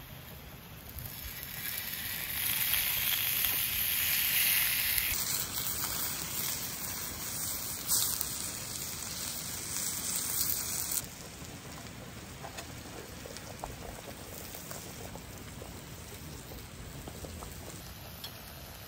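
Meat sizzling on hot cast-iron plates over a fire, a loud, even hiss that swells about a second in. After about eleven seconds it drops to a quieter hiss with a few faint ticks.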